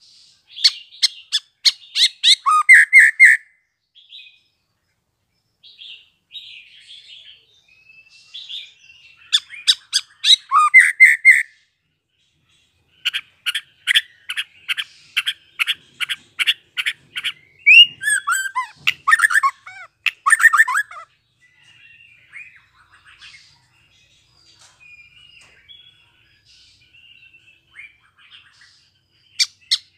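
A young white-rumped shama, just out of its spotted juvenile plumage, singing. Its song comes in loud bouts of rapid repeated sharp notes, several ending in lower falling notes, with soft twittering between the bouts.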